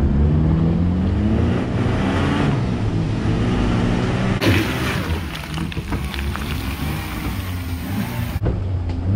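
Off-road 4x4 engines revving and labouring, the pitch rising and falling. The sound changes abruptly about four seconds in and again about eight seconds in.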